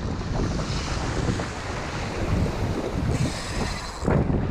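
Wind buffeting the microphone, with waves washing against the rocks of a jetty. The wind noise surges loudest about four seconds in.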